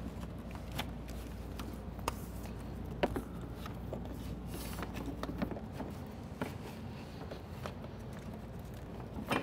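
Faint handling noises: scattered light clicks, taps and rustles as the red and black winch wires are worked along the ATV's wiring harness, over a low steady hum.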